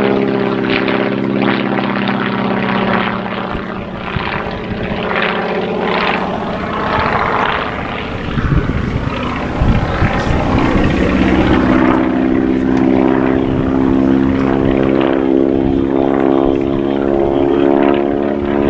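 Propeller engine of a radio-controlled model aircraft running steadily at a show. Around the middle its note drops away behind a rough, noisy stretch, then comes back at a slightly higher pitch.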